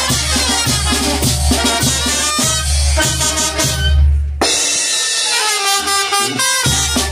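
Youth brass band playing: clarinets, trumpets, saxophones and sousaphones over a bass drum and cymbal beat. About four seconds in, the drums and low brass drop out for about two seconds, leaving the horns on held notes, then the full band comes back in.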